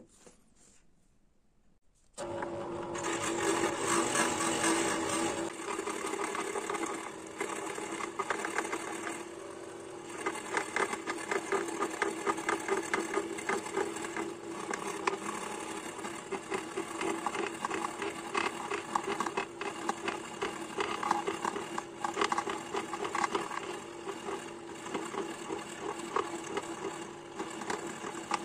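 Benchtop band saw running and cutting a block of linden wood, a steady motor hum under the rasp of the blade in the wood, rising and falling as the block is fed. It starts suddenly about two seconds in.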